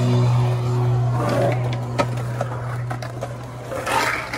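Skateboard wheels rolling through a concrete bowl, a steady low rumble, with a sharp knock about two seconds in.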